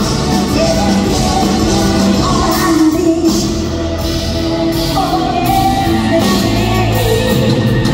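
Live pop-rock band playing: electric guitars, bass, drums and keyboards, with a female lead vocal, heard from the audience in a large concert hall.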